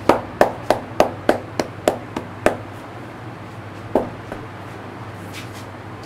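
A barber's hands striking in rhythm during an Indian head massage: about three sharp slaps a second for two and a half seconds, then a single strike about four seconds in, over a steady low hum.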